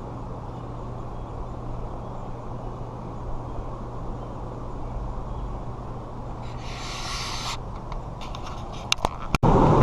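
Steady low hum of the R-Pod travel trailer's rooftop air conditioner running. About seven seconds in there is a brief hiss, then a few clicks near the end, after which the air-conditioner noise is louder.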